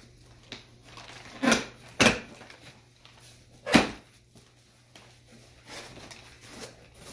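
Cardboard box being opened by hand: the flaps are pulled apart and the cardboard rubs and scrapes, with three loud, sharp knocks in the first four seconds.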